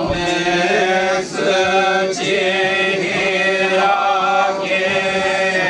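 A voice chanting a kagura song in long, held notes that waver in pitch, with short breaks between phrases.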